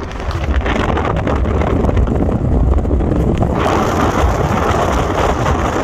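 Wind buffeting the microphone: a steady low rumble with rushing noise that grows louder about three and a half seconds in.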